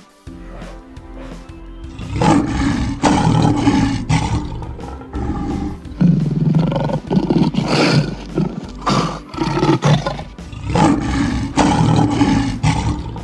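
Tiger roaring and growling in a run of rough, deep calls that start about two seconds in, with short breaks about halfway through and again near the end.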